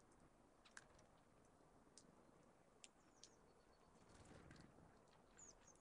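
Faint, scattered short chirps and sharp ticks from small songbirds, a few single notes over a quiet background hiss.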